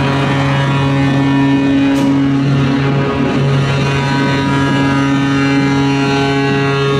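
Arena goal horn blaring a long, loud, low held note, with a brief break about three seconds in, sounding for a goal.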